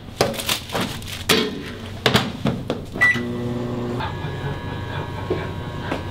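Microwave oven door opened and handled, with a few clicks and knocks, then a single beep about three seconds in as it is started, after which the oven runs with a steady hum.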